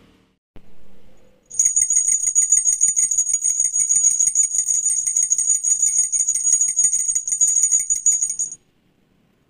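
Rapid high jingling, shaken continuously for about seven seconds, starting about a second and a half in and cutting off suddenly near the end. A brief softer sound comes just before it.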